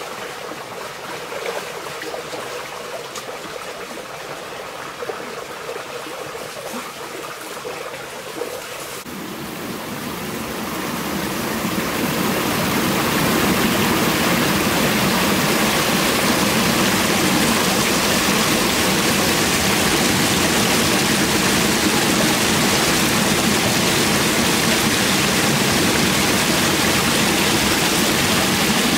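Shallow stream running over rocks, a steady rush of water. It grows markedly louder about ten seconds in and then holds steady.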